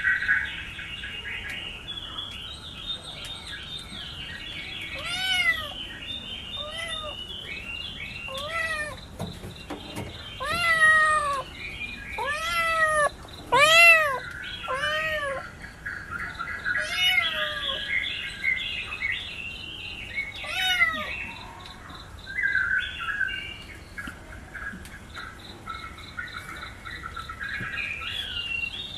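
Kitten meowing again and again: about ten short, high meows that rise and fall in pitch, bunched in the middle stretch, over continuous bird chirping.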